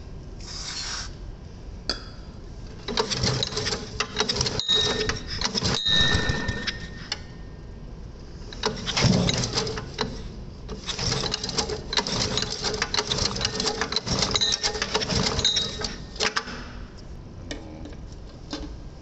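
Small single-cylinder Robin petrol engine on a restored Mametora G350L carrier, pull-started on its recoil starter and firing in uneven spells of a few seconds, with gaps between. It is the freshly rebuilt engine's first test run, and the owner traces its poor running to a carburetor fault rather than the engine itself.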